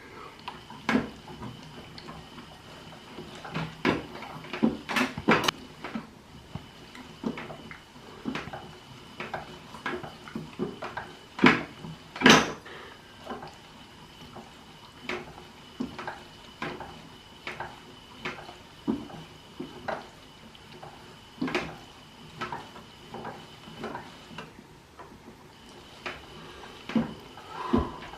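Toy washing machine being handled: irregular light plastic clicks and knocks, a few sharper ones among them, over a faint steady high-pitched tone.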